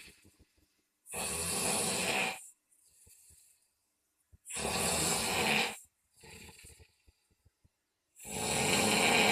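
Loud snoring: three heavy rasping snores, each about a second and a half long and coming roughly every three and a half seconds, with a softer breath out between each.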